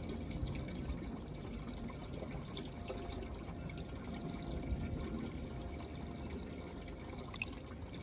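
Water welling up from a pump underneath through the pebbles of a glazed bird-bath water feature, trickling and dripping steadily as the bowl fills toward the rim.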